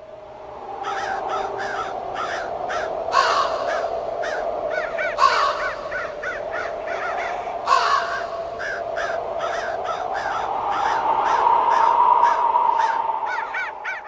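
Crows cawing in rapid, repeated calls over a steady low drone. Three louder, sharper sounds stand out about three, five and eight seconds in.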